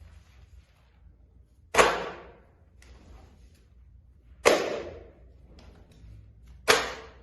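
Three sharp hits, a couple of seconds apart, each dying away over about half a second: Foley impacts being recorded.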